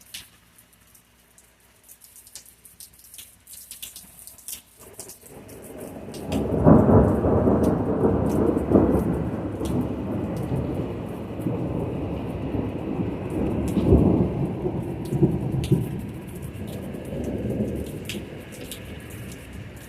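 Rolling thunder from a thunderstorm. For the first few seconds there are only scattered raindrop taps; then the thunder builds about five seconds in into a long, deep rumble that swells again partway through and slowly fades, with rain tapping throughout.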